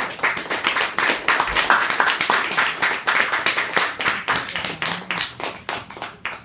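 Small audience applauding, many hands clapping irregularly, thinning out toward the end.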